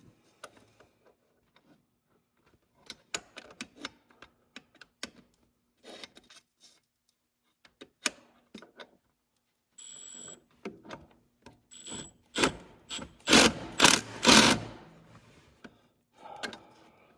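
Tools clinking on metal, then an impact wrench run in several short bursts to snug up the drive coupler bolts. The loudest are three or four quick bursts near the end.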